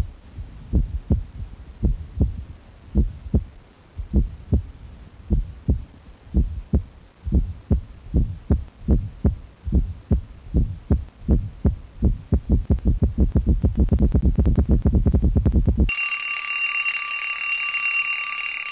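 Sound effect of deep, heartbeat-like thumps at about two or three a second, speeding up until they blur into one continuous sound. An alarm clock starts ringing about sixteen seconds in.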